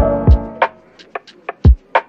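Background music: a mellow instrumental beat with deep kick-drum thumps, sharp hi-hat ticks and sustained keyboard chords.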